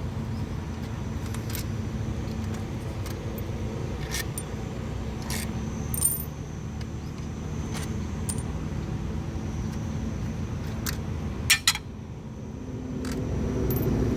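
Scattered metallic clinks and scrapes of tools and parts while a Honda Activa scooter's gearbox casing is being opened, with a pair of sharper clicks near the end, over a steady low hum.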